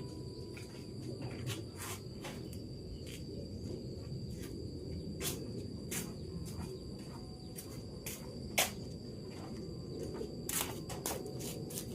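Light rain falling: a low, even rush with scattered sharp drop hits, one louder than the rest past the middle, over a steady high insect drone.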